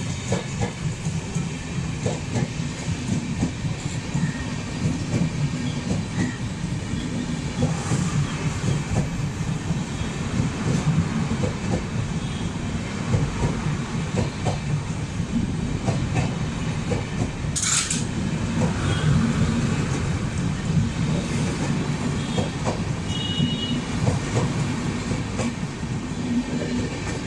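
LHB passenger coaches of an express train rolling slowly past under a 30 km/h speed restriction: a steady rumble with wheels clicking over the rail joints. A brief hiss partway through.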